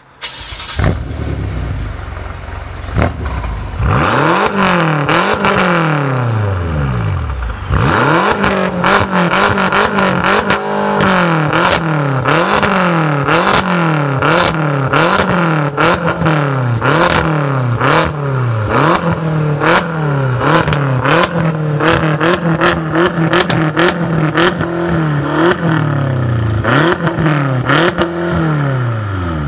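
BMW M6's twin-turbo V8 starting up and settling briefly, then revved hard again and again, about one blip a second, with sharp pops and crackles from the exhaust as the revs fall. Near the end it drops back to idle.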